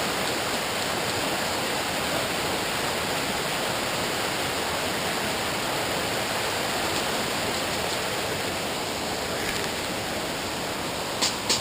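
River water rushing steadily, an even hiss with no breaks. Just before the end, a quick run of sharp clicks starts.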